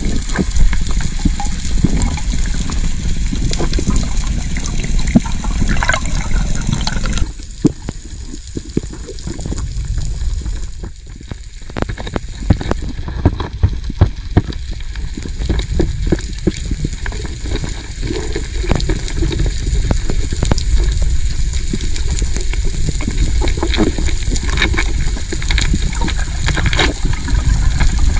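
Underwater water noise picked up by a diver's camera: a steady low rushing of water and bubbles with many scattered sharp clicks. The character changes abruptly about seven and about thirteen seconds in.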